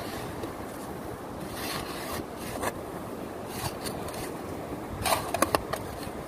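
Metal shovel digging into wet beach sand: a series of gritty scraping strokes, with a quick cluster of scrapes about five seconds in, over steady surf and wind noise.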